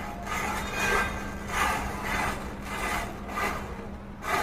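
A chain of standing matchsticks catching fire one after another as the flame runs along the line: a hissing crackle that swells and fades about every two-thirds of a second.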